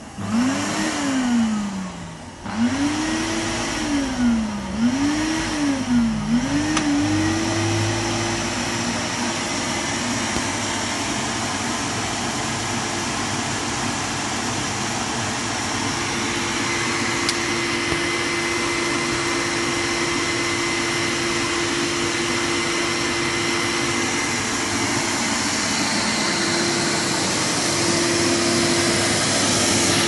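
Numatic tub vacuum cleaner motor whining up and down in pitch several times as it speeds up and slows down, then settling into a steady, even run.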